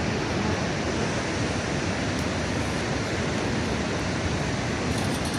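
Steady rushing roar of a waterfall, an even wash of falling-water noise that holds at one level.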